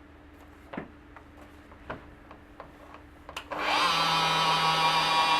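An electric paint polisher switches on about three and a half seconds in, spinning up quickly and then running steadily, for machine-polishing the paint and polish over a scratch. Before it starts there are a few light knocks as it is handled.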